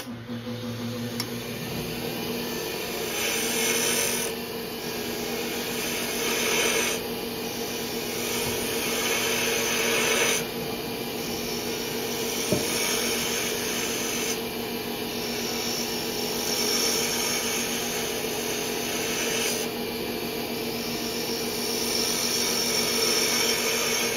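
Wood lathe running with a steady motor hum while a turning gouge cuts the spinning wooden mallet blank. The scraping cut swells and fades in repeated passes every few seconds.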